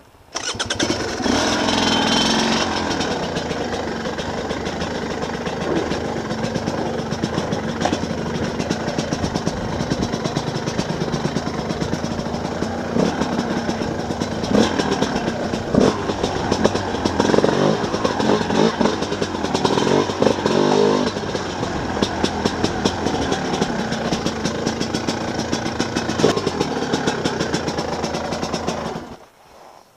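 Enduro motorcycle engine running as the bike picks its way over a rocky trail, with scattered knocks and clatter from the bike striking rocks. The engine sound starts abruptly just after the start and cuts off about a second before the end.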